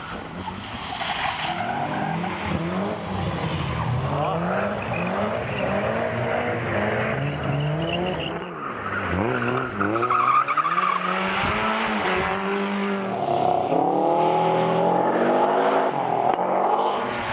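Rally cars' engines revving hard, the pitch sweeping up and falling back again and again as the cars slide through the cones, with tyres hissing and splashing over a wet, slushy surface. The revving is loudest about ten seconds in and again near the end.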